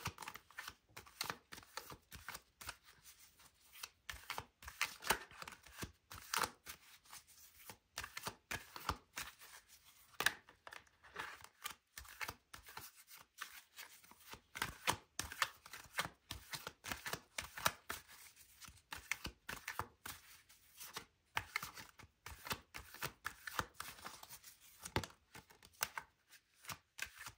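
A tarot deck being shuffled by hand: a quiet, irregular run of card clicks, slaps and rustles.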